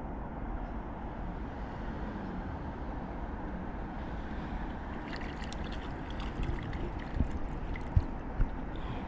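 Steady low background noise, with water splashing and clicking from about halfway through and two or three sharp knocks near the end.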